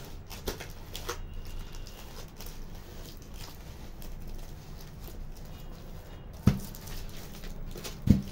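Two sharp knocks about a second and a half apart, the second near the end, over a low background of faint scattered taps and rustles.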